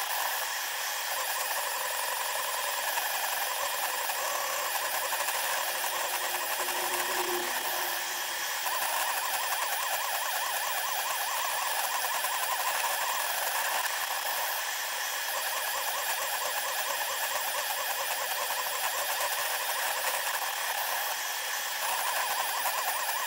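SeeMeCNC Orion delta 3D printer running, sped up tenfold: its stepper motors and effector cooling fan come out as a steady high-pitched whirring hiss with a few held tones.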